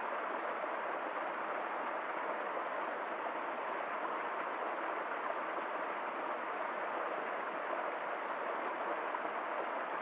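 Stream water flowing: a steady, unbroken rush of running water.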